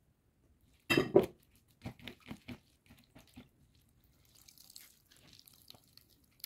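Spiralized cucumber and chives squeezed by hand to press out their juice: a loud wet squelch about a second in, then several smaller squelches. After that, juice trickles and drips faintly into the bowl.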